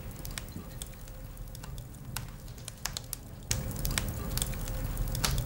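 Logs burning in a wood-burning stove, crackling with scattered sharp pops. The crackling grows busier, with a low rumble of flame, from about three and a half seconds in.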